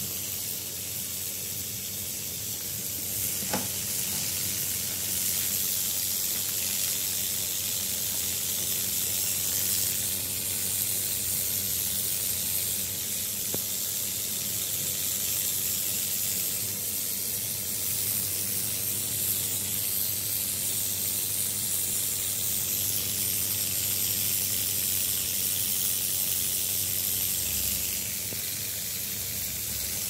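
Steady hiss of steam jetting from the cap nozzle of a glass-bottle boiler onto a small homemade turbine, with a sizzling edge. A single sharp click about three and a half seconds in.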